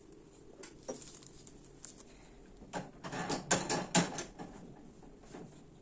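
A plastic syringe drawing up and squirting dye solution onto wet wool: scattered small clicks, then a cluster of louder crackling clicks about three to four seconds in.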